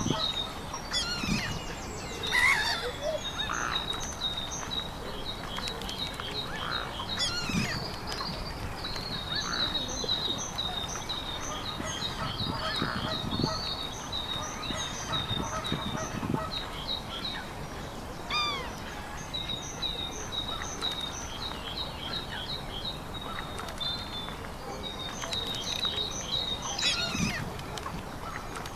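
Birds calling outdoors: a long series of rapid, high-pitched repeated notes runs almost throughout, broken now and then by louder, lower calls that bend in pitch.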